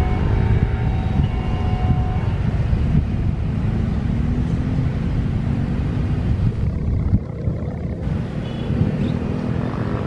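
Airbus A320 jet engines running at take-off power during the take-off roll, a loud, steady low rumble.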